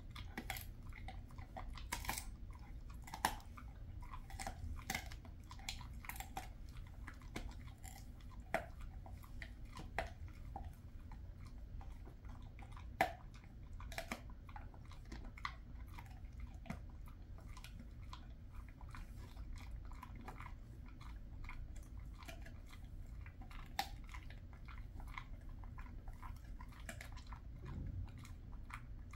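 A Jindo dog chewing a dried elephant-fish treat: slow, irregular crunching and clicking, with a few louder crunches scattered through.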